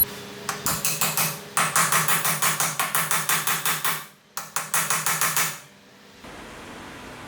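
Rapid, evenly spaced metal taps with a short ring, about six a second, from hand tools at work on a motorcycle's steering stem bearing parts; they come in two runs with a brief break a little past four seconds in.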